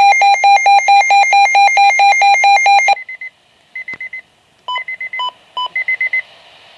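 Weather radio alert tone: a loud electronic tone pulsing about five times a second for about three seconds, then breaking into short groups of quick, higher beeps.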